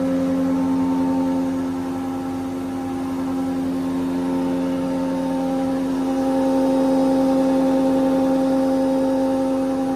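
Hammer A3 31 combination jointer-planer running steadily, its 4 kW motor spinning the three-knife cutterhead with an even hum and whine. The sound grows slightly louder about six seconds in.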